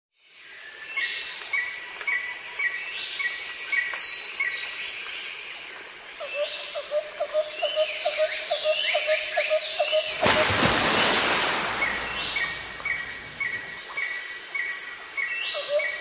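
Several wild birds calling over a steady high insect drone: a quick run of short repeated notes, downward-slurred whistles, and a lower rapid chirping series. A brief rush of noise sweeps through about ten seconds in.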